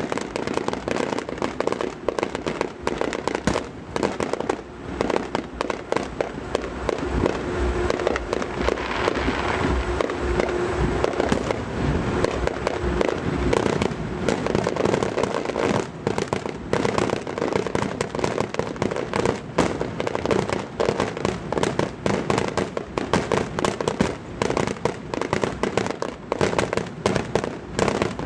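Fireworks going off in a dense, continuous barrage: many bangs and crackling pops a second with no let-up.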